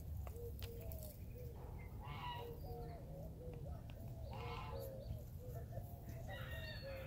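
Faint poultry calling: a steady string of short low notes, about three a second, with three louder calls about two seconds apart.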